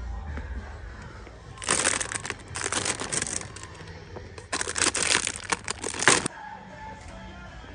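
Clear plastic bags of toy fruit and vegetables crinkling as they are handled, in two spells of a second or two each, about two seconds in and again about four and a half seconds in.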